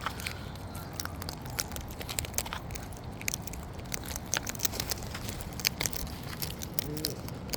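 A parrot's beak crunching and nibbling close to the microphone: irregular sharp clicks and crackles over a steady low background hum.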